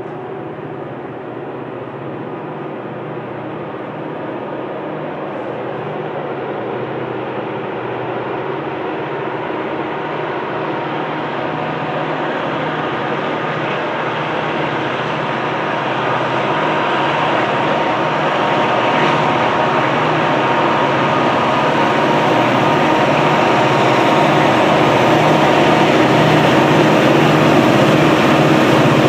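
Three EMD SD40-2-type diesel locomotives, each with a turbocharged 16-cylinder 645 engine, working at full throttle up a grade. The engine drone grows steadily louder as the train approaches.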